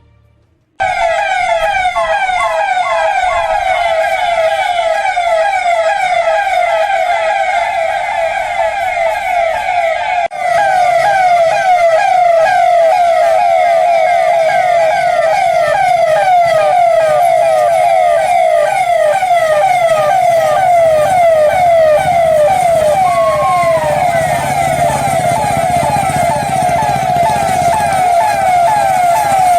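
Vehicle sirens from a convoy sounding a rapid yelp: a loud pitched tone sweeping over and over several times a second. It starts just under a second in and breaks off briefly about ten seconds in.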